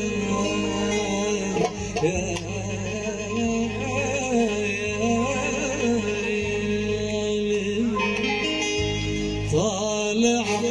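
A male singer's voice in long, wavering, ornamented phrases of Middle Eastern style, over instrumental accompaniment with sustained low notes underneath.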